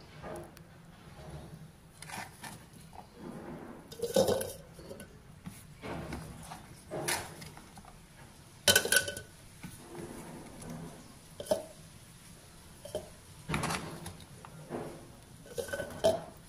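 Chopped beetroot and carrot pieces being picked up by hand off a wooden cutting board, with irregular knocks and clatters every second or two.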